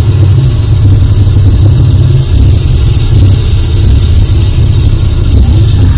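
Wind buffeting the phone's microphone: a loud, continuous low rumble that rises and falls without a break.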